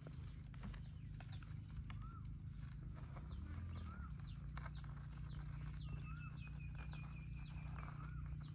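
Birds calling in the background: a steady series of short downward whistles, about two a second, and a softer rising-and-falling chirp every second or so, over a low steady hum.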